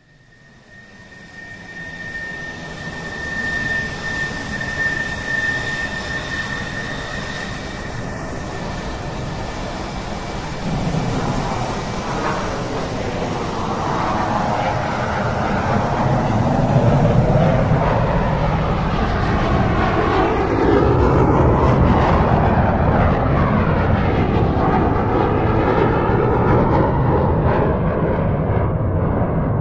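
Jet aircraft engines running: a steady high whine fades in, then a broad engine rumble swells from about ten seconds in and stays loud.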